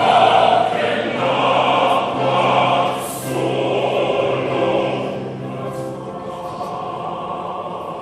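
Choir singing in harmony, holding long chords, growing quieter over the last few seconds.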